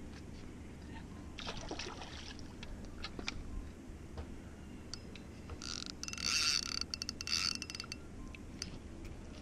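Water splashing lightly beside a boat hull, then a rasping, clicking whir of about two seconds from a spinning fishing reel being worked by hand.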